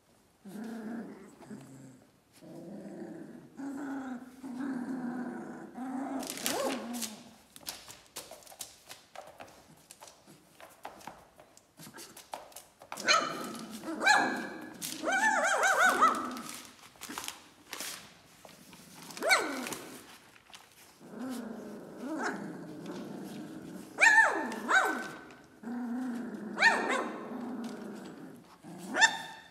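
Three-week-old Doberman puppies growling and yipping in a litter. Low grumbling growls run in stretches, broken by sharp high yelps and squeals through the middle and near the end.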